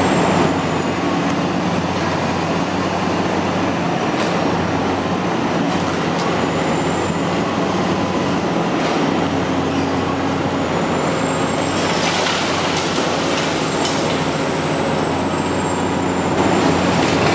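Hitachi 50-tonne high-reach demolition excavator working: a steady diesel engine hum with hydraulic noise, a faint high squeal now and then, and a few short knocks.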